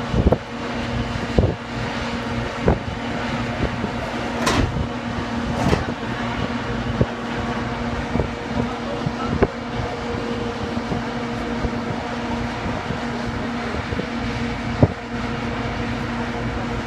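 Steady machine hum with a low held tone, from a parked Ilyushin Il-76 transport and its airfield ground equipment, broken by scattered knocks and clunks, one with a short metallic ring about four and a half seconds in.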